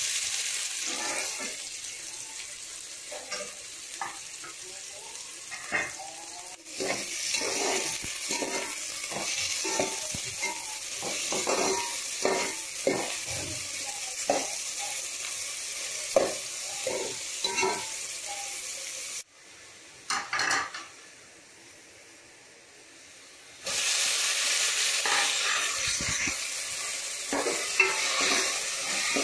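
Chopped onions sizzling in hot oil in a metal pot, with frequent short scrapes and knocks of a utensil stirring them against the pot. The sizzle drops away for a few seconds about two-thirds of the way through, then returns just as loud.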